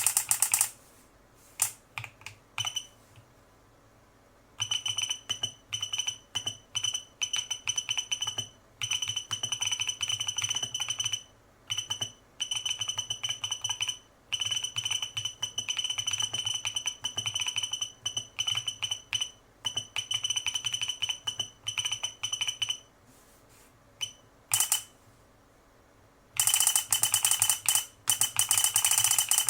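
GH60 mechanical keyboard typed on fast with its buzzer on: a high beep sounds with the keypresses, running in long strings broken by short pauses, over the key clicks. At the start and again in the last few seconds there is a loud, dense clatter of keystrokes with the solenoid knocking, like a typewriter.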